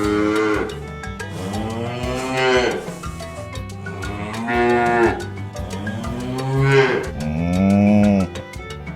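Cattle mooing repeatedly: about five calls, each lasting around a second and rising then falling in pitch.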